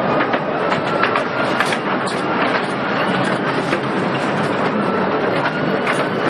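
Small underground mine train rattling along its rails through a tunnel: a steady rumble with frequent clicks and clatter from the wheels and wagons.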